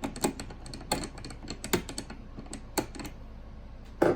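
Irregular small clicks and taps of a screwdriver and metal parts being handled while the M.2 heatsink cover on a motherboard is unscrewed, with a louder knock near the end.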